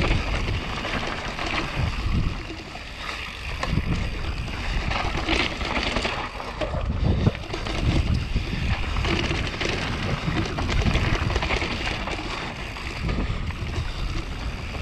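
Mountain bike descending a dirt forest trail at speed: wind rushing over the camera microphone, tyres rolling on dirt, and the bike rattling and knocking over bumps.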